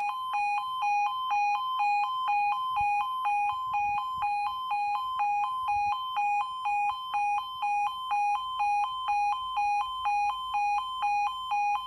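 Level crossing audible warning alarm sounding continuously, a two-tone electronic yelp alternating between a lower and a higher pitch in a steady rhythm, warning that a train is approaching.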